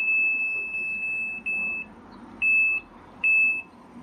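Washing machine control-panel beeper sounding as its buttons are pressed: a long high beep of about a second and a half, then three short beeps. The panel still answering keypresses is the sign that the main board works.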